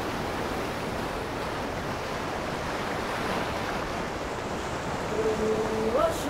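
Ocean surf breaking and washing up the shore, a steady rushing wash. About five seconds in, soft held musical notes begin.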